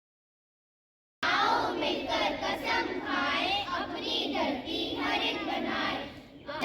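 Dead silence for about a second, then children's voices singing together.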